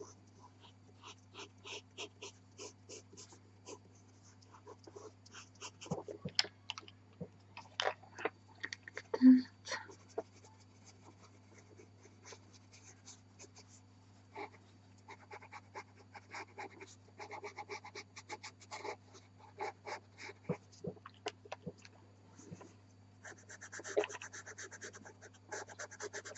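Pastel pencil strokes scratching across velour pastel paper in many short, uneven bursts, over a steady low hum, with one louder knock about nine seconds in.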